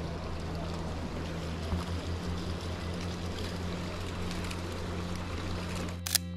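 Steady rushing noise of flowing river water, with a low steady hum underneath. Near the end a single sharp camera-shutter click cuts it off and music starts.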